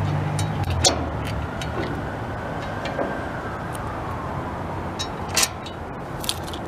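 Metal-on-metal clicks and knocks from bolts being fitted and tightened on a steel bulkhead bracket, with two louder sharp knocks. A low mechanical hum stops about a second and a half in.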